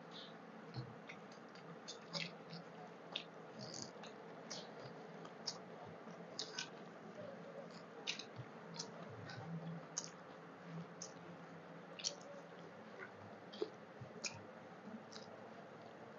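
Close-miked mouth sounds of eating rice and curry by hand: small wet clicks and lip smacks of chewing, scattered irregularly about once or twice a second, over a faint steady hum.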